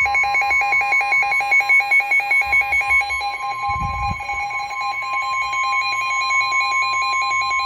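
Emergency alert tones for a severe thunderstorm warning: a steady high tone, the NOAA Weather Radio 1050 Hz warning alarm, under a rapidly pulsing electronic alarm beep. The pulsing beep stops just before the end, leaving the steady tone alone.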